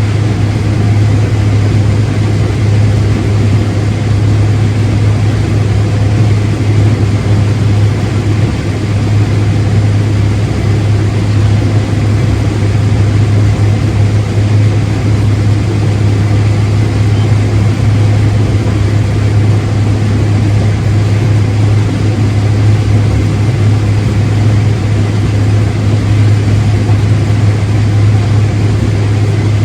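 Large farm machine's engine running steadily, with an even low hum that does not change.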